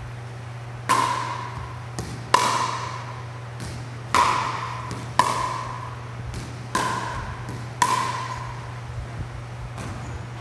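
Pickleball rally: paddles striking the hollow plastic ball, six sharp pops about a second apart, each with a short ringing tail, with fainter ball bounces on the court between them. A steady low hum runs underneath.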